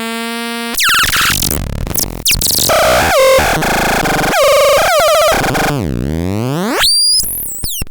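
Electronic synthesizer sounds: a held buzzy tone, then a run of quickly changing, glitchy notes, a deep swooping sweep, and high rising glides, ending in a few short chirps.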